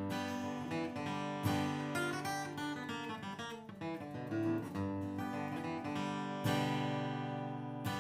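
Martin dreadnought acoustic guitar played with a flatpick: single picked notes mixed with strummed chords. A full chord is struck about a second and a half in, and another about six and a half seconds in, which is left ringing.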